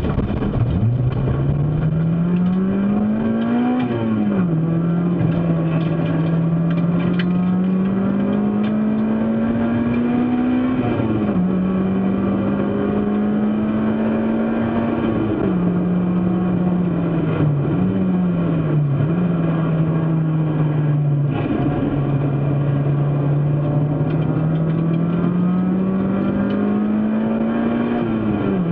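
Race car engine under power. Its pitch climbs steadily, then drops sharply, as at gear changes, about four times. There are a couple of quick dips in pitch a little past the middle.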